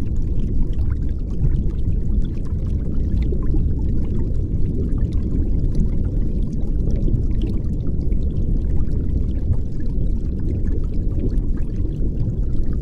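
Steady, low rushing water-like noise with faint scattered crackles.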